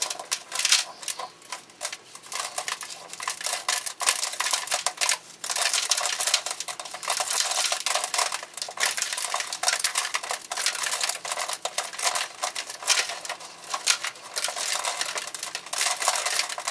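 Gritty bonsai substrate being scraped and raked out of a tree's root ball: a near-continuous run of small clicks, crunches and scratches.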